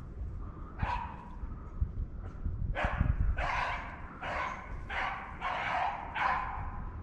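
Beagle barking: a single bark about a second in, then a quick string of about six barks. This is a young beagle giving voice while hunting the brush for rabbits.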